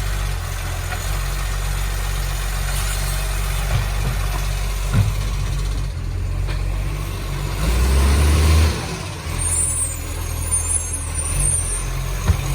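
Garbage truck's diesel engine running with a leaking exhaust, a steady low note that swells for about a second around eight seconds in, with a couple of short knocks.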